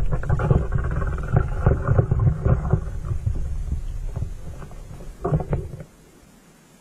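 Underwater water noise on a sinking camera rig: a low rumble with scattered knocks and clicks that fades, with a last cluster of knocks just after five seconds, then drops to a faint background about six seconds in.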